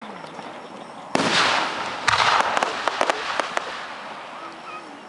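Aerial firework shells bursting overhead: two loud booms about a second apart, each trailing off, with a quick string of sharp crackles after the second one.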